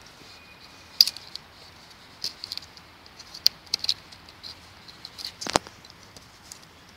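Elmax-steel knife blade cutting into a wet branch: irregular sharp clicks and crackles as the edge bites into the wood, the sharpest about a second in and again near the end.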